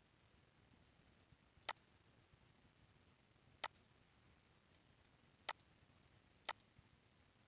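Computer mouse button clicked four times, each sharp click followed closely by a fainter one.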